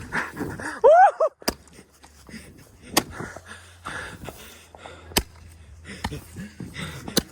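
Roman candle firing, a sharp pop every one and a half to two seconds, five in all. About a second in, a person gives a loud rising-and-falling yell.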